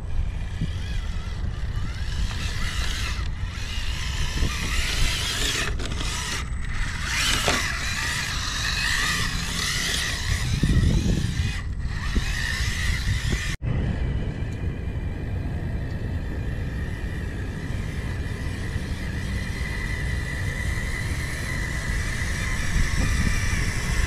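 Electric motor and gears of an RC scale crawler truck whining steadily as it crawls over rock and gravel, with wind rumbling on the microphone. The sound cuts out for an instant about two-thirds of the way through.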